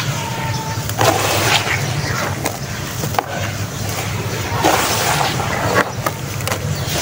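Wet sand-and-cement clumps being squeezed and crumbled by hand in a basin of water, with gritty crunching and watery squelching that swells as the handfuls are pressed.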